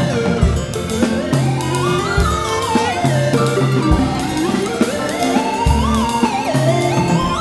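Live chamber ensemble of piano, harp, electric harpsichord, synthesisers, percussion and viola playing contemporary music: a melody slides smoothly up and down in pitch over held low notes, with a low drum hit about every second and three-quarters.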